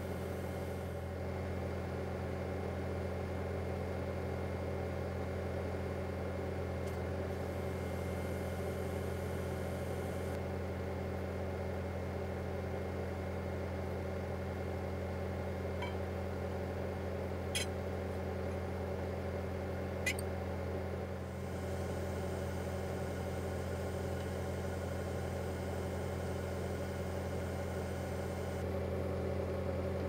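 Bobcat compact track loader's diesel engine running steadily, driving the hydraulics of a CPT push system during a cone push. Two short sharp clicks come a little past halfway.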